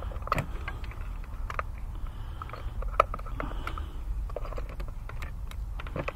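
Scattered light metallic clicks and taps of a socket and extension being handled and worked down into a spark plug well, over a faint low background hum.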